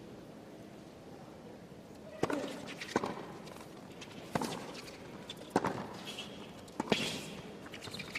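Tennis rally on a hard court: sharp racket strikes on the ball, starting with the serve about two seconds in and then about one every second and a half, five in all, over a low steady crowd hum.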